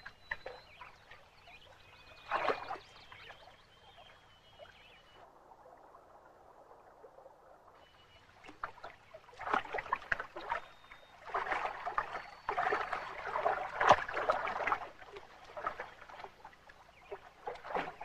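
Water splashing in irregular bursts as a black bear wades and snatches salmon in a shallow river. One splash comes about two and a half seconds in and a busier run of splashing from about nine to fifteen seconds in, over the faint steady flow of the stream.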